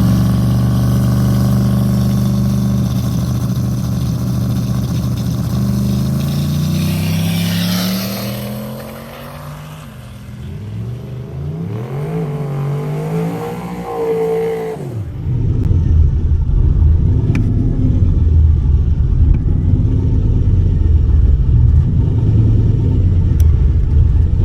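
Drag race car engines held at steady revs on the starting line, then launching, their pitch rising as they accelerate away and fade. From about two-thirds in, a nearer engine rumbles low and uneven at idle.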